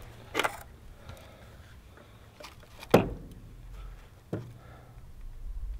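A few scattered knocks and clicks from hand tools being handled against the wooden ledger board, the loudest about three seconds in.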